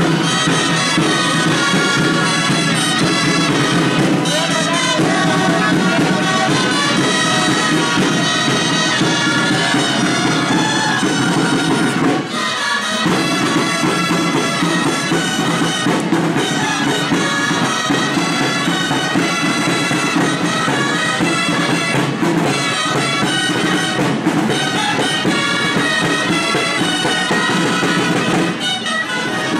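Traditional Catalan band of gralles (shrill double-reed shawms) and drums playing a processional dance tune, with a brief break in the phrase about twelve seconds in and another near the end.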